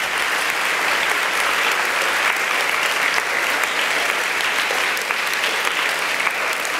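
Congregation applauding: many hands clapping at once in a steady, sustained round.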